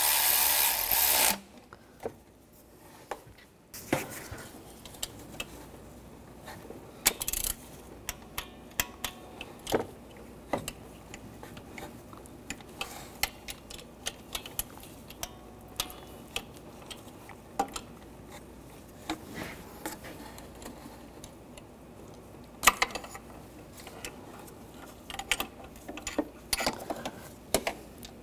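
A power tool runs loudly and cuts off about a second in. Then a hand ratchet and socket click in short runs, with scattered metal clinks, as the nuts on the exhaust manifold of a 1.4L turbo engine are tightened.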